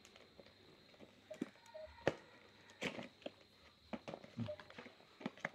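Faint, scattered clicks, taps and rustles of a small cardboard perfume box being opened and its contents handled.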